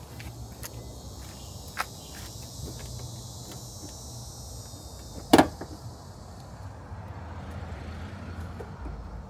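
Plastic front bumper cover of a Chevrolet Volt being pulled loose at the side, its retaining clips giving light clicks, a sharp snap a couple of seconds in and one louder pop a little past halfway.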